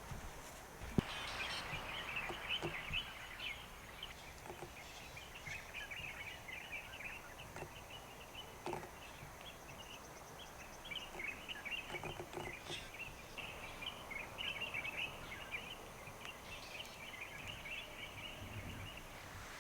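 Chorus of chirping birds and insects, many short chirps overlapping, over a steady high-pitched insect drone; one sharp click about a second in.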